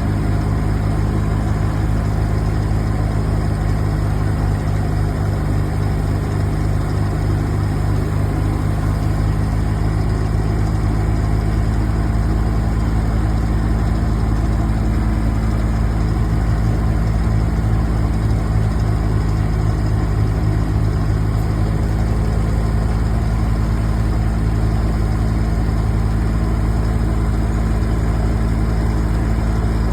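A large engine idling steadily, a low, even drone that does not change.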